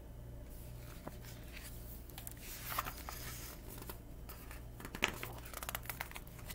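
Pages and cover of a hardcover picture book rustling as the book is handled and set down, in scattered crinkles and light taps.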